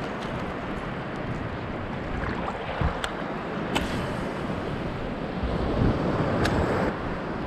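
Surf washing around a wading angler, with wind buffeting the microphone. Three short, sharp clicks stand out, about three, four and six and a half seconds in.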